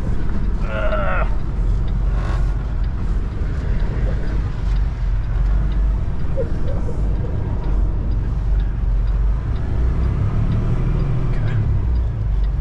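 Semi truck's diesel engine running steadily as the truck drives slowly, a continuous low rumble.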